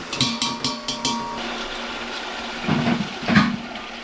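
Steel spoon scraping and clinking against the inside of a large aluminium pot as chicken pieces frying in ghee are stirred, over a steady sizzle. There are quick clicks in the first second and louder scrapes about three seconds in.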